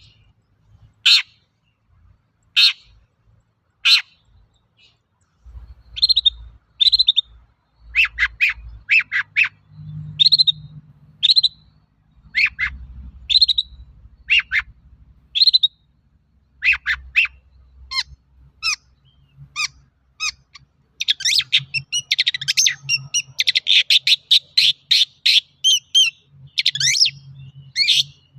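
Long-tailed shrike (cendet) in full song: sharp separate calls about every second and a half, then quicker strings of notes, breaking into a dense, rapid chattering run near the end.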